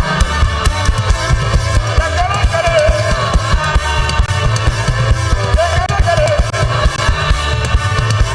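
Live gospel praise band playing an upbeat song, with drum kit and bass keeping a steady beat and a lead line wavering over it.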